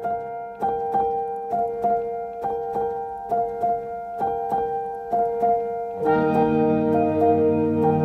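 Background music: a keyboard plays short notes in a repeating pattern, about three a second, over held tones. A fuller, deeper sustained layer joins about six seconds in.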